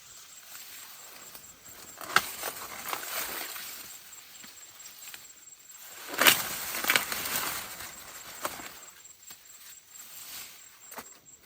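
Rustling handling noise broken by a few sharp snaps or cracks, the loudest about two seconds in and again around six to seven seconds in.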